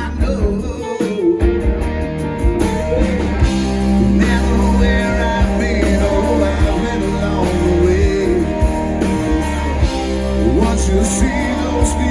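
Live band music: a country-rock band playing a song on stage.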